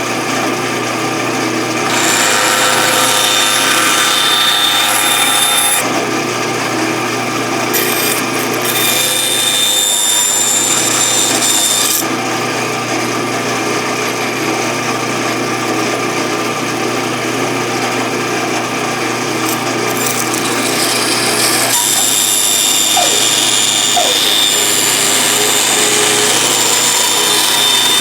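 Bandsaw running with a steady motor hum, its blade cutting through a wooden dragster blank. The cutting noise swells and eases as the block is fed, loudest from about two to six seconds in, again around eight to twelve seconds, and through the last six seconds.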